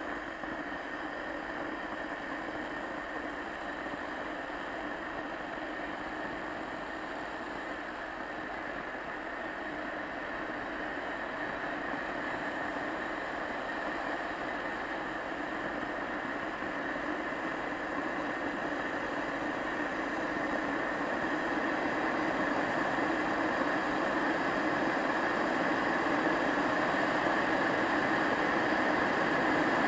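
Kettle heating water: a steady rumbling hiss that slowly grows louder as the water works toward the boil.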